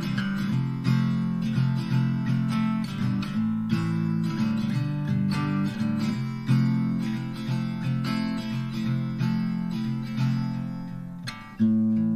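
Background music: strummed acoustic guitar playing chords in a steady rhythm, with a short dip and a louder new chord near the end.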